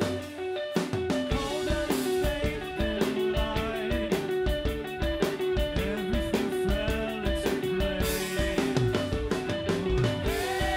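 Live math-rock band playing an instrumental passage: electric guitar and bass guitar over a drum kit, with frequent drum hits.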